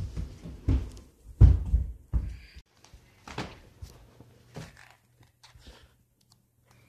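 Dull thumps and rustling from movement and handling, bunched in the first two and a half seconds with the loudest thump about a second and a half in, then a few light knocks and clicks.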